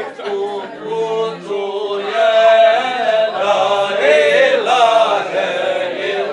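Men's voices chanting a slow Islamic devotional song, drawn-out notes sliding up and down in a melismatic line.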